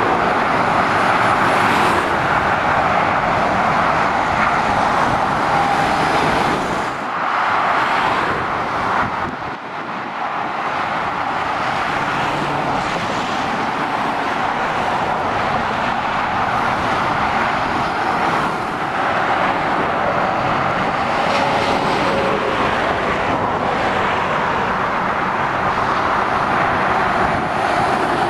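Motorway traffic passing below a bridge: heavy lorries and vans going by at speed, a steady noise of tyres on the road and diesel engines. It eases briefly about seven and about ten seconds in, between vehicles.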